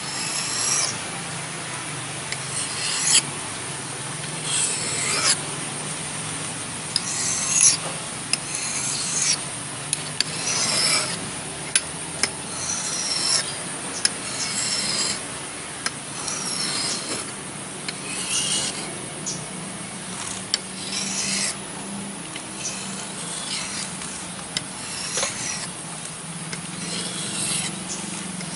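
Steel hatchet blade being sharpened by hand against an abrasive: repeated scraping strokes, roughly one a second, uneven in spacing and strength.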